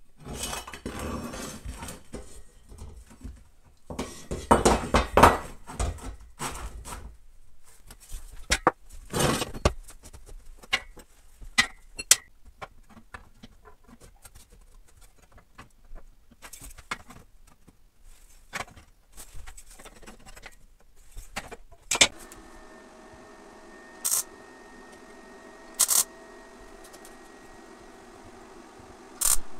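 Steel square tubing being handled and fitted on a wooden workbench: irregular clanks, knocks and metal scrapes. About 22 seconds in, a MIG welder's steady hum comes on, followed by three short tack-weld bursts a couple of seconds apart.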